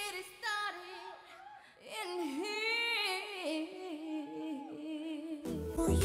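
A woman's voice sings a slow, drawn-out melody alone, with no beat or bass under it. Near the end, a dance track with a heavy beat and bass cuts in.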